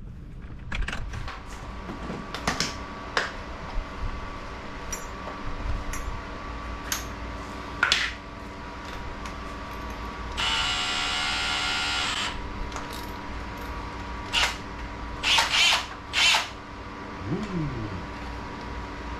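Cordless drill running in one burst of about two seconds, drilling out the plastic of a Tesla wall charger's mounting bracket. Sharp clicks and knocks from handling the drill and bracket come before and after it.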